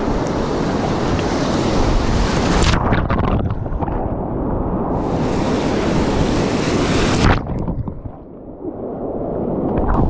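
Whitewater rapid rushing and waves breaking and splashing around a sea kayak and paddle as it runs through the rapid. The rush is loud throughout, briefly drops and goes dull about eight seconds in, then builds again.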